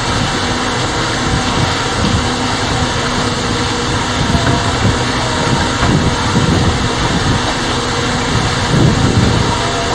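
Small solar-electric boat under way: a steady rush of wind and water with a faint, steady hum underneath from its electric drive.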